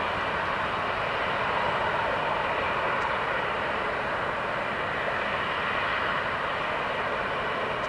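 Boeing 787-8's Rolls-Royce Trent 1000 turbofans at takeoff thrust during the takeoff roll: a steady, even jet noise.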